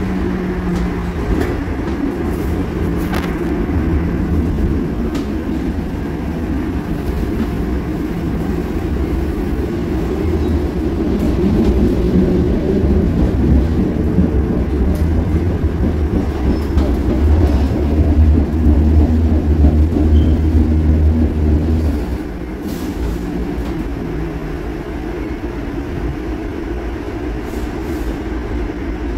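Interior running noise of an old Cologne Stadtbahn light-rail car under way: a loud, steady low rumble with the odd click from the wheels and car body. The rumble builds and then drops off sharply about three quarters of the way through.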